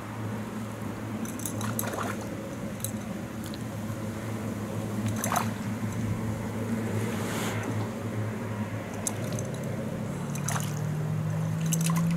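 Small splashes and drips of water as a hooked roach is wound in on a spinning reel, with scattered light clicks, over a steady low hum.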